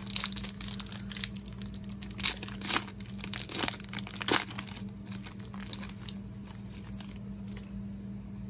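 Foil wrapper of a 2013 Crown Royale football card pack being torn open and crinkled by hand: a quick run of crackles that thins out about five seconds in.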